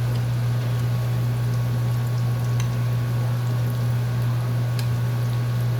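Batter frying and bubbling in a pan of hot oil, with a few faint pops. A steady low hum runs under it and is the loudest part.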